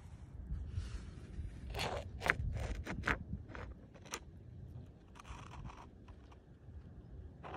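Short scrapes and clicks of a hand handling a river stone, a quick run of them around two to three seconds in and a last click about four seconds in, over a low steady rumble.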